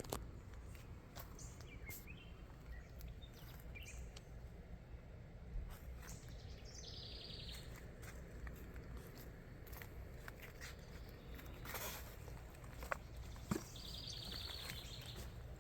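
Garden ambience with birds calling: a rapid, buzzy trill about seven seconds in and another near the end, a few short faint chirps early, over a steady low rumble and occasional small clicks.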